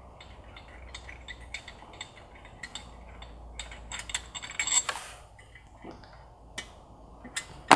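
Hand ratchet with an Allen socket on a wobble extension clicking in short, irregular runs as the bolt of the turbo-to-downpipe V-band clamp is backed off, with one sharper click near the end.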